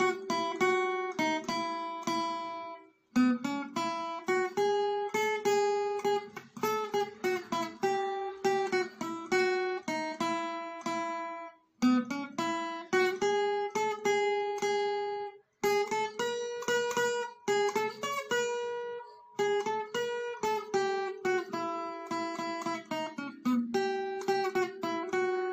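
Music: a solo acoustic guitar plucking a melody in short phrases, with brief pauses between them.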